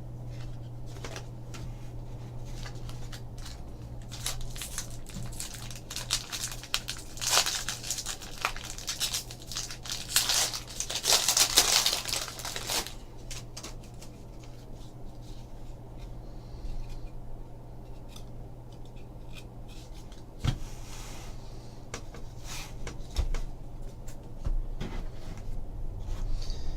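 A trading-card pack's foil wrapper being torn open and crinkled, in a few bursts of rustling with the loudest about ten to thirteen seconds in, along with small clicks of cards being handled, over a steady low hum.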